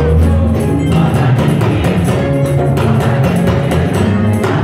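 Loud gospel music from a band, with a drum kit keeping a steady beat over sustained bass notes and guitar.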